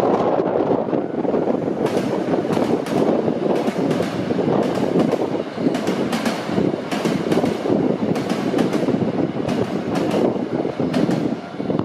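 A train passing over a level crossing: a steady rolling rumble of wheels on rail, with a run of sharp clacks as the wheels cross the rail joints, from about two seconds in until near the end.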